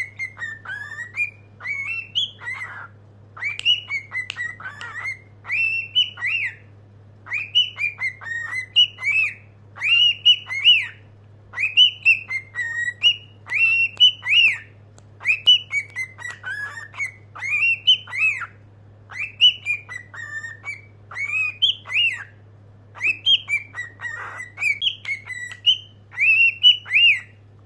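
Cockatiel singing: a long run of short whistled phrases of gliding, warbling notes, repeated with brief pauses between them. A faint steady low hum lies underneath.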